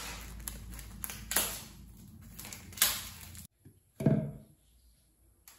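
Clear plastic wrapping rustling and crackling as it is handled around a new 5-micron sediment filter cartridge. About four seconds in, a short hollow knock as the cartridge is set into a blue plastic filter housing.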